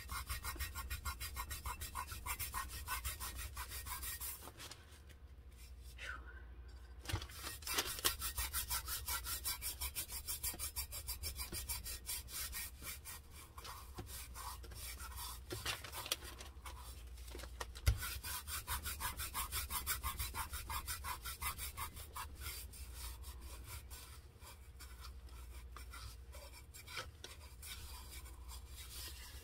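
Gloved fingertips rubbing glitter firmly down onto a tumbler, a scratchy rubbing in quick, even strokes, about four or five a second, with two short pauses.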